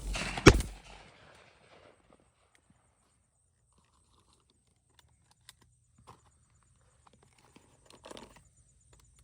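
Two shotgun shots fired in quick succession at a passing dove, the second and louder about half a second in, each ringing out briefly. Then only a few faint ticks.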